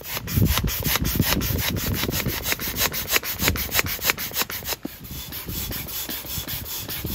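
Handheld air pump worked with quick, even strokes, each stroke a short rasping whoosh of air, inflating the air chamber of an inflatable boat.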